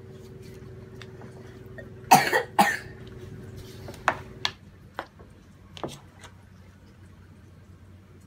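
A person coughs twice about two seconds in, then a few short knocks and clicks from wooden butter paddles working salt into fresh butter on a cutting board.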